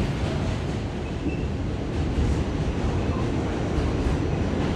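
Steady low rumble of an R46 subway car running along the track, heard from inside the car.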